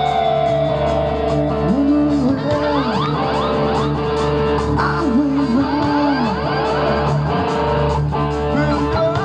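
Live rock band playing: electric guitars with bending, sliding notes over a drum kit.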